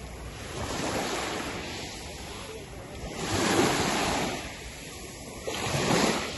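Small waves breaking and washing up a fine shingle beach, three swells of foamy rush, the loudest about halfway through.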